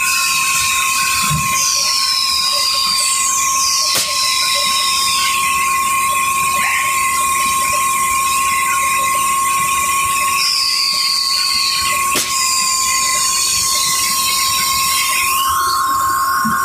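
Printing machine running with a steady high whine and repeated high squeals that fall in pitch over a second or two. Sharp clicks come at alternating gaps of about five and eight seconds, the on-off switching of the machine's twin timer and air solenoid valve.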